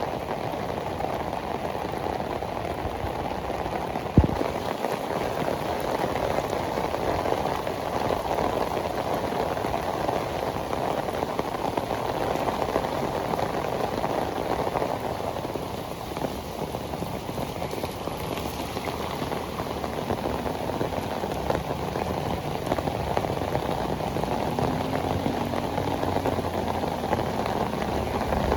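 Heavy tropical rain pouring onto pavement and street surfaces, a steady dense hiss. One sharp knock about four seconds in, and near the end the low hum of an approaching vehicle's engine starts to come in.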